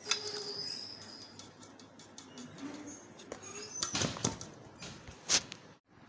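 A flour sieve being shaken and knocked against the side of a metal pot while sifting flour, giving irregular taps and rattles, with a few sharp knocks about four to five and a half seconds in.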